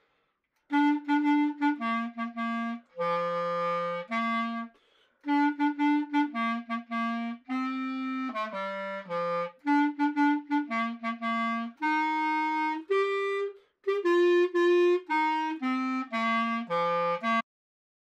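Solo clarinet playing a melody of short, separate notes in phrases with brief pauses between them, starting about a second in and stopping shortly before the end.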